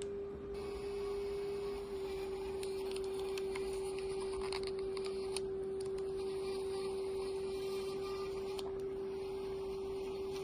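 Olympus OM-D E-M10 Mark III mirrorless camera giving off a steady, unbroken hum of one tone, like a small motor running, with faint ticks over it. It is an abnormal noise from damage after the camera was dropped on concrete.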